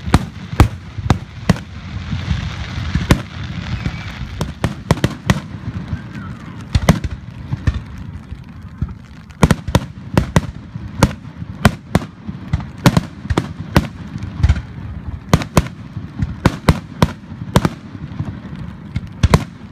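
Aerial firework shells bursting overhead in a display: dozens of sharp bangs in quick, irregular succession, sometimes several close together.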